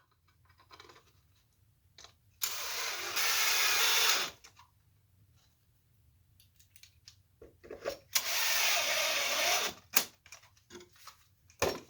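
Power drill run in two bursts of about two seconds each, with small clicks and knocks of handling between.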